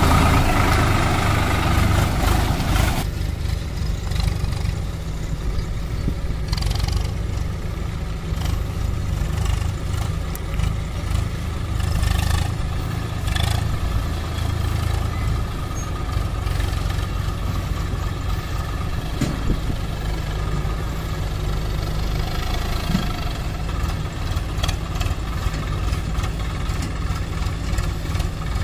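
Swaraj 744 XT tractor's three-cylinder diesel engine running steadily while hauling a loaded trailer. It is louder and closer for about the first three seconds, then a steady, more distant hum.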